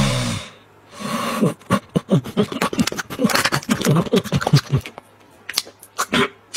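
A Shiba Inu snoring, with the end of a loud snore at the start and a snorting breath about a second in. Then, from about a second and a half in, a quick run of sharp clicks and short voice-like grunts as it wakes and snaps at a piece of dried meat held to its nose, with a few fainter clicks near the end.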